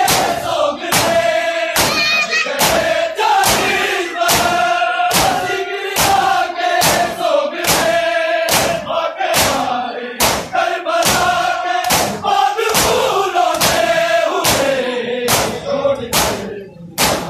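A crowd of mourners chanting a noha together, with a sharp, even slap about twice a second, the rhythm of matam, hands beating on chests in unison. Near the end the chanting drops away while the slaps go on.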